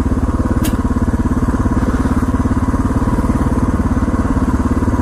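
Motorcycle engine idling steadily with a fast, even pulse. A single short click sounds about half a second in.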